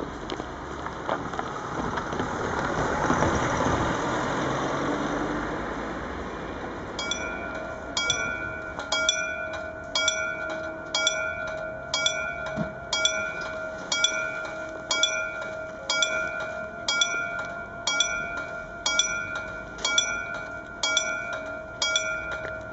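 Rumble of an electric train running on the line, swelling and fading over the first few seconds. About seven seconds in, a level crossing's warning bell starts, striking about once a second with a sustained ringing tone.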